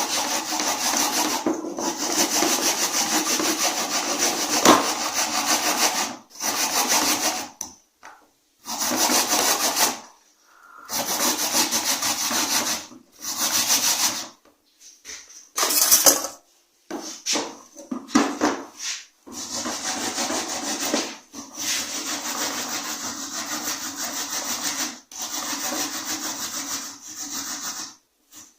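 Produce being grated on a hand grater: quick back-and-forth rasping strokes in several spells, broken by short pauses.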